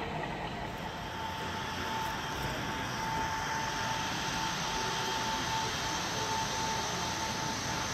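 Steady background noise of a large exhibition hall at a model train show, with a thin, steady high whine setting in about two seconds in.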